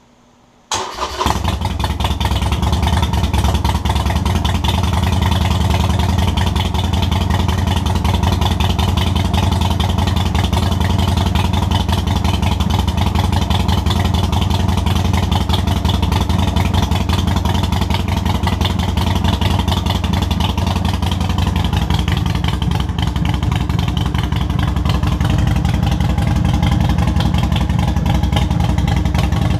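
A 2022 Harley-Davidson Sportster Forty-Eight's 1200 cc air-cooled V-twin, fitted with Vance & Hines Short Shots exhaust and a Stage 1 tune, cold-starting less than a second in and then idling loudly and steadily.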